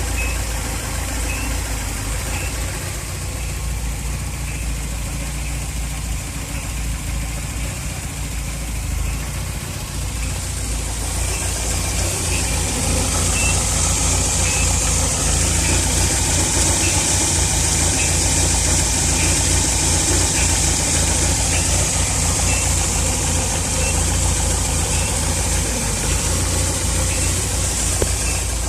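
Warm Volvo B234F 16-valve four-cylinder engine running, with a short squeak repeating at an even spacing over the engine sound. The owner links the squeak to the timing belt, coming once every two belt revolutions, and has ruled out the alternator. About eleven seconds in the sound grows louder and a hiss joins it.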